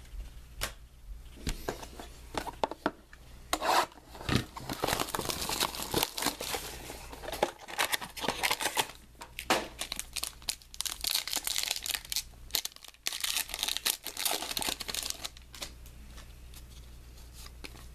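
Wrapping being torn and crinkled as a sealed trading-card box is opened, with the cardboard box and the cards inside handled: irregular rustling with many small clicks, thinning out near the end.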